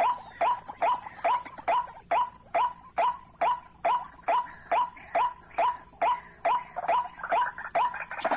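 White-breasted waterhen (ruak-ruak) calling, a short hooked note repeated steadily about two and a half times a second. Near the end more calling overlaps it as another bird joins in.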